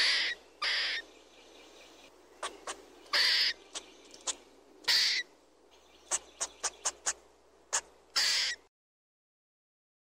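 Eurasian red squirrel: a string of short, raspy bursts and sharp ticks at irregular intervals, about a dozen in all, over a faint steady background hiss. The sound cuts off abruptly near the end.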